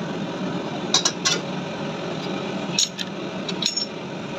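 Hand tool clinking and scraping against the lead lugs of a lead-acid battery plate group in a steel jig: about half a dozen sharp metallic clicks, several close together about a second in and more near the end, over a steady low machine hum.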